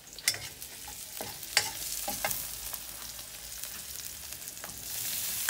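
Chopped onions sizzling in a steel pan on a gas stove, with a few sharp clinks of a utensil in the first half. The sizzle grows louder near the end as ground meat is scraped into the hot pan.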